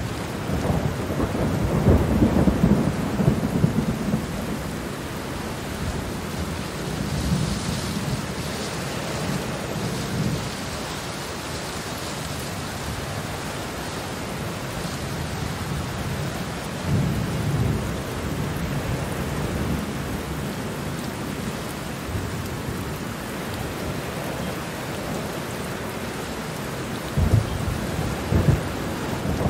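Steady rain with rolls of thunder, the rumbles heaviest in the first few seconds, again briefly about halfway through and near the end.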